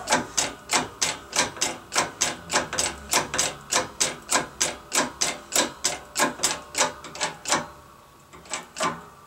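Rapid, even clicking, about three clicks a second, from the pump of a hydraulic bottle-jack shop press being worked as it presses a wheel hub bearing into a steering knuckle. The clicking stops a little before the end, followed by two weaker clicks.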